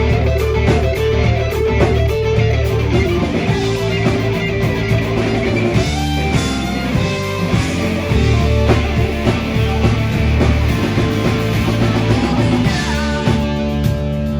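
Live rock band playing loud, an electric guitar holding sustained lead notes over bass and drums.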